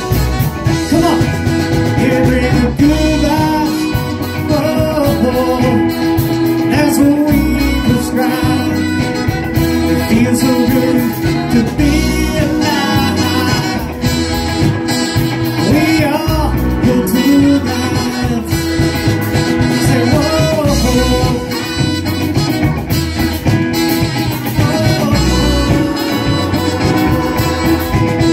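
Live band playing a song: electric and acoustic guitars, keyboard and drums, with a lead singer.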